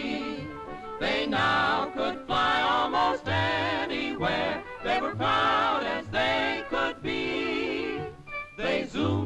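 Cartoon background score with a lively, wavering melody over a bouncing bass line.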